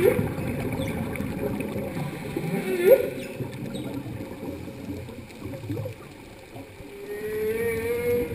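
Humpback whale song heard underwater: short rising moans, the loudest about three seconds in, then a longer wavering call that climbs slightly near the end, over a hiss of water.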